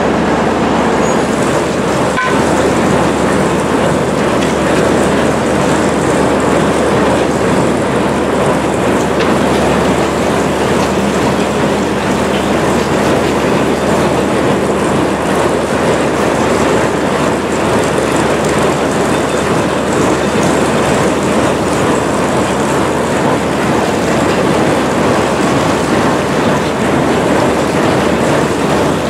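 SM-2 rail snow-removal train running steadily: a constant loud mechanical din, with one sharp click about two seconds in.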